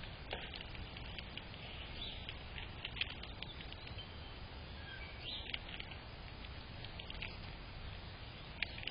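Outdoor ambience with a steady low rumble and hiss, broken by scattered sharp clicks and a few brief high bird chirps.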